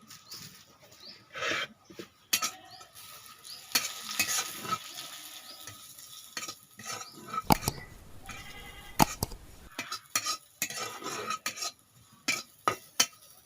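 A metal spoon stirring and scraping food in a pan, with irregular sharp clinks against the pan, while the food sizzles as it fries.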